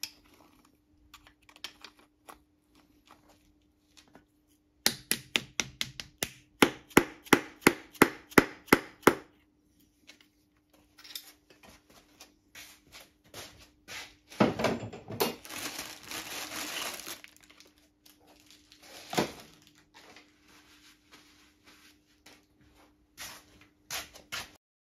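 A piston being tapped down through a homemade sheet-metal ring compressor into an engine block's cylinder bore: a quick run of sharp taps, about five a second for four seconds. A few seconds later comes a longer noisy scraping stretch and then one more knock.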